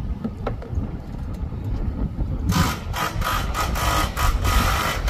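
Boat motor running under way as a steady low rumble; about two and a half seconds in, a loud fluttering rush of wind and water noise sets in, in quick uneven pulses.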